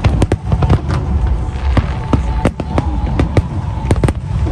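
Aerial fireworks shells bursting in quick succession: a rapid run of sharp bangs over a deep rumble, packed most closely in the first second.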